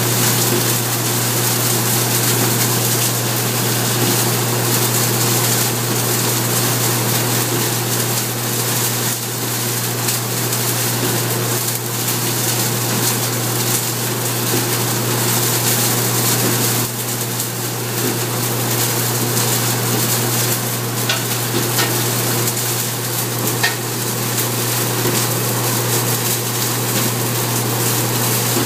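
Machine with spinning rubber-fingered rollers running steadily: a constant low motor hum under a loud, even rushing crackle of plant material being churned through the rollers, with a few faint ticks in the second half.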